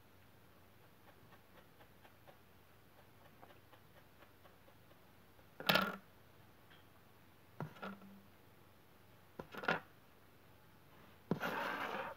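Handling noises on a tabletop as small tools and yarn are worked: faint ticks and rustles, then a few short knocks of objects set down or bumped on the table, with a brief rubbing rustle near the end.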